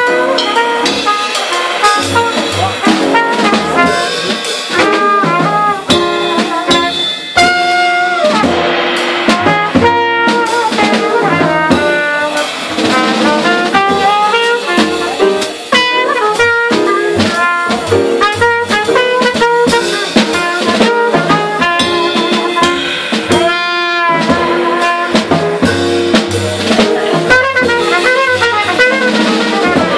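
Live jazz quartet playing: a cornet carries the melody over an upright double bass, a drum kit with cymbals and piano.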